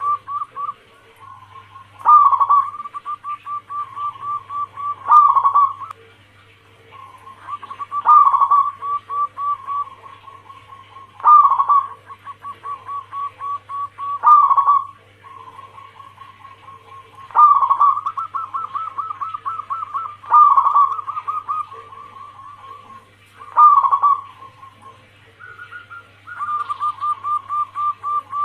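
Zebra dove (perkutut) cooing in repeated phrases about every three seconds, each a loud opening note followed by a quick run of short staccato coos. A low steady hum lies underneath.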